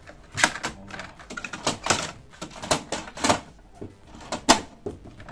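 Plastic clicks and knocks of the HP DeskJet 2720 printer's paper output tray extension being pushed in by hand. The clicks come as an irregular series, the loudest about four and a half seconds in.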